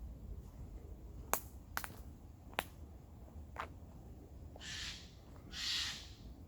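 Footsteps on a woodland path: several sharp clicks spaced roughly a second apart, then two longer scuffs near the end.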